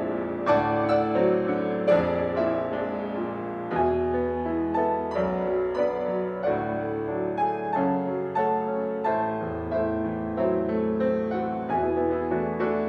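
Piano duet playing a continuous flow of struck chords and melody notes, each note ringing and fading.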